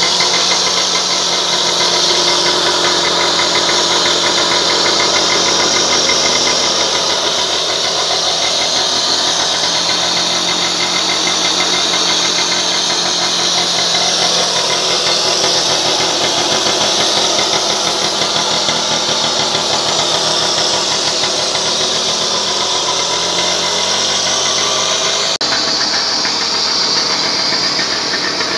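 Monet-Goyon Starlett 98 moped's small two-stroke engine running steadily at idle, with a fast even beat; the sound changes abruptly about 25 seconds in.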